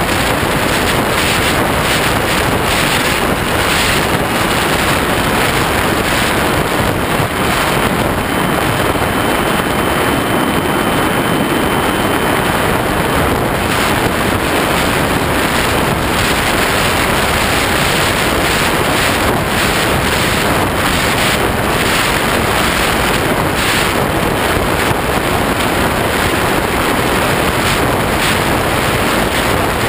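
Loud, steady wind rush over a wing-mounted camera on a ParkZone Habu electric ducted-fan RC jet in flight, with a faint high whine from the fan for a few seconds in the middle.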